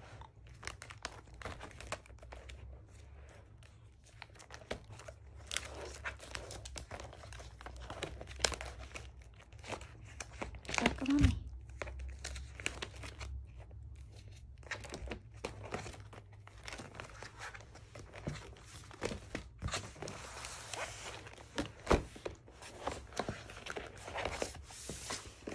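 Clear plastic binder pocket pages rustling and crinkling as they are turned by hand, in irregular crackles with small clicks.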